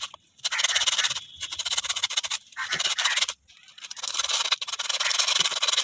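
80-grit sandpaper rubbed by hand over the fibrous outside of a coconut shell half: a rasping scrape in strokes of about a second each, with short breaks between them.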